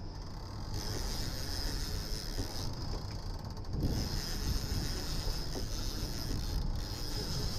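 Fishing reel being cranked against a hooked fish, a mechanical whirring and clicking, over a steady outboard motor running and water rushing past the hull.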